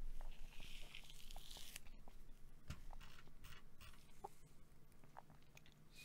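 Hand rubbing over a bearded face and mouth close to the microphone: a faint scratchy rustle from about half a second in to nearly two seconds, then only faint scattered clicks.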